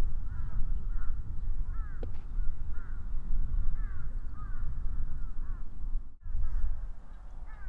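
Birds calling over and over, short arching calls overlapping several times a second, above a steady low rumble. Everything drops out for a moment about six seconds in.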